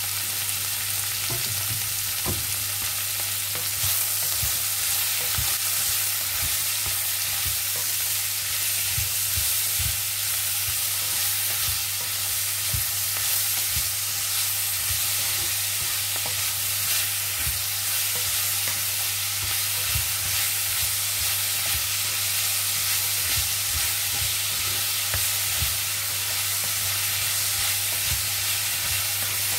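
Sliced vegetables sizzling as they stir-fry in a non-stick wok, with a wooden spatula knocking and scraping against the pan at irregular intervals. A steady low hum runs underneath.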